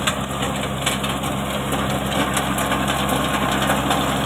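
Kubota 21 hp mini tractor's diesel engine running steadily under load, driving a reverse-forward rotavator that churns soil, with the PTO at 540 rpm.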